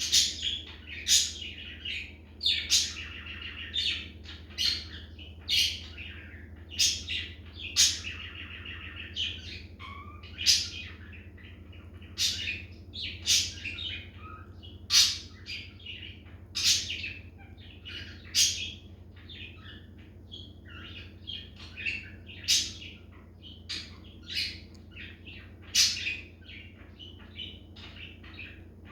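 Budgerigar singing: sharp high chirps about once a second, broken by stretches of rapid chattering warble, over a low steady hum.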